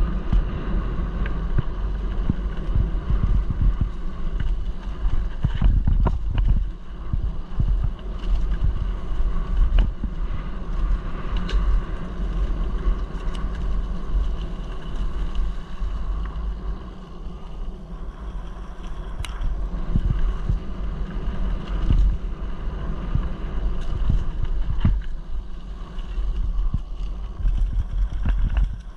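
Wind rushing over the microphone and the rumble and rattle of a mountain bike rolling down a rough gravel and dirt track, with occasional sharp knocks from bumps and stones.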